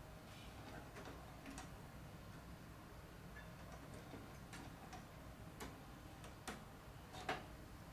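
Scattered small clicks and taps of plastic and metal copier parts being handled while a paper feed sensor is fitted, unevenly spaced, with the sharpest click about seven seconds in. A faint low hum runs underneath.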